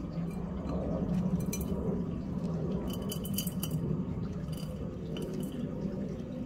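Dark soil substrate poured from a plastic tub into an empty glass fish bowl: light clinks and patters of grains and the tub against the glass, clustered around a second and a half in and again three to four seconds in, over a steady low hum.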